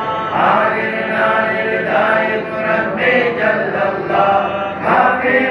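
A group of men chanting dhikr together, several voices in unison rising and falling in pitch.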